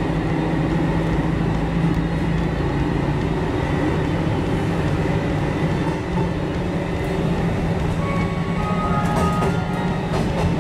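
Hisatsu Orange Railway diesel railcar running with a steady low engine hum. A few brief higher tones come in near the end.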